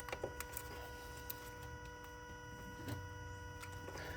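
A few faint plastic clicks from hands working at an ignition coil's electrical connector, trying to unplug it, over a faint steady hum.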